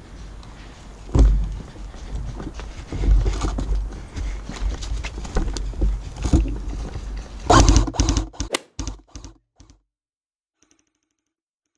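Sharp clicks and knocks over a low, uneven rumble of handling and movement noise, with a quick run of clicks near the end before the sound cuts off abruptly.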